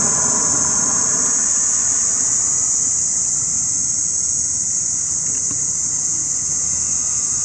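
Steady high-pitched chirring of a dusk insect chorus. Under it, a car's engine and tyre noise fades away over the first couple of seconds.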